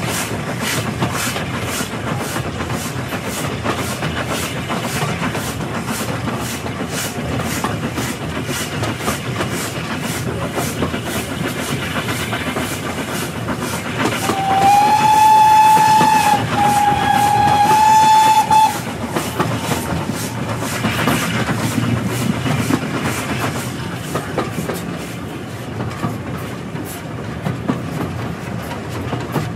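British Railways Standard Class 4 steam train running, heard from the front carriage: a steady rumble with the regular clickety-clack of wheels over rail joints. About halfway through, the locomotive's steam whistle sounds in two blasts of a few seconds in all, the second slightly higher.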